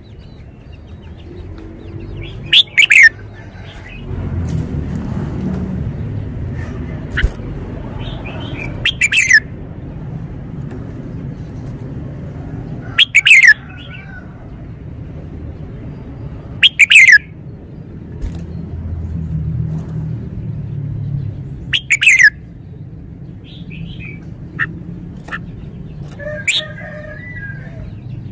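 Red-whiskered bulbul singing its clear whistled song in short phrases, five loud ones spaced a few seconds apart, each a quick run of notes sliding down in pitch, over a low steady background rumble.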